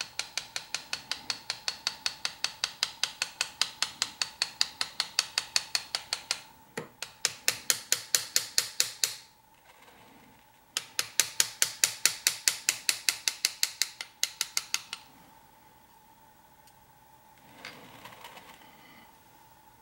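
Small engraver's hammer tapping a hand-held engraving chisel as it cuts scrollwork into a metal plate, quick even strikes about four a second. The tapping comes in three runs, with short breaks about six and nine seconds in, and stops about fifteen seconds in; a brief softer noise follows near the end.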